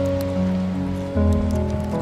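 Background music of sustained, held notes, the chord changing about a second in.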